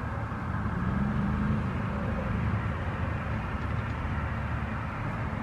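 Steady low outdoor background rumble, with a faint engine-like hum swelling briefly about a second in.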